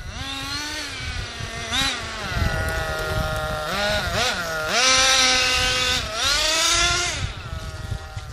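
Small nitro engine of a CEN Fun Factor RC stadium truck, revving up and down repeatedly as the truck is driven. It is loudest about halfway through, when the truck passes close.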